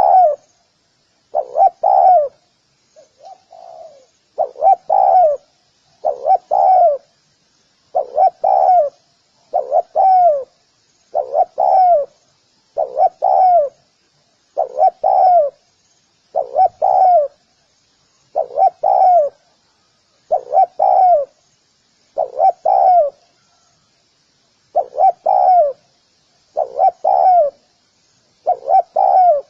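Spotted dove cooing, repeating its two- to three-note phrase about every two seconds, with one much fainter phrase about three seconds in. Faint high chirps sound throughout.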